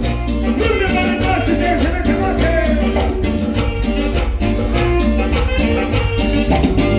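Latin dance music in the cumbia style: a steady bass line, an even percussion beat and a melody line playing over them.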